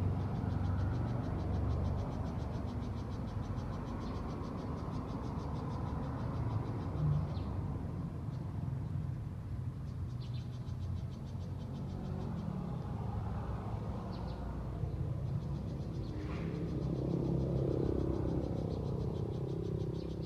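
Outdoor ambience: a fast, steady pulsed trill from a calling animal, high-pitched, pausing for a few seconds partway through. Under it runs a constant low rumble that swells slightly near the end.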